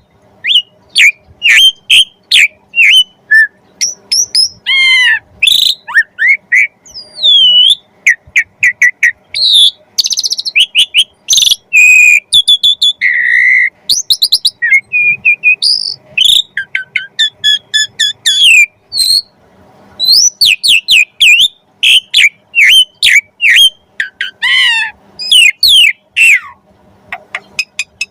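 Asian pied starling (jalak suren) singing a fast, unbroken run of sharp whistles, chirps and gliding notes, its song packed with mimicked phrases ('full isian').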